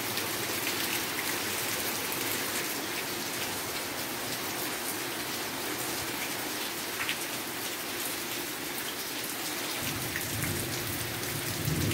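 Steady rain falling and pattering on surfaces, an even hiss with scattered drop ticks. Near the end a low rumble of thunder begins to build.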